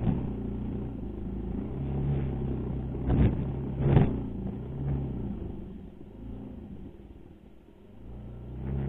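Racal MC 125 dirt bike engine running under throttle on a rough dirt trail, its note swelling and easing as the rider works the throttle and dipping lower near the end. Two sharp knocks come about three and four seconds in.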